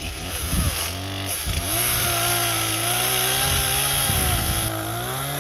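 Two-stroke chainsaw running, uneven at low speed at first, then throttled up about one and a half seconds in and held at high speed, easing off slightly near the end.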